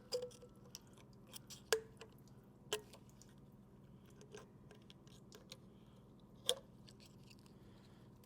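Scattered light clicks and taps of small plastic fittings and check valves being handled and removed from the Comet P40 pump manifold, with about four sharper clicks.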